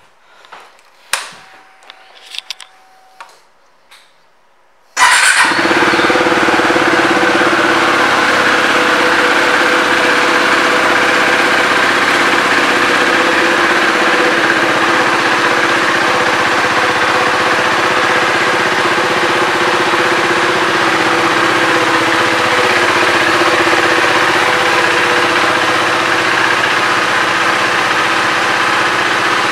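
KTM 390 Duke's single-cylinder four-stroke engine starting about five seconds in, after a few quiet clicks and a faint whine lasting about two seconds. It catches at once and then idles steadily.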